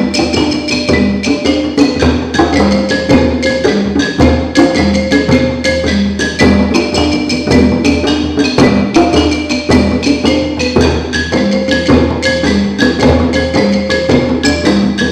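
Djembe hand drums and wooden xylophones playing together in a steady rhythm: low drum strokes under repeating pitched xylophone notes.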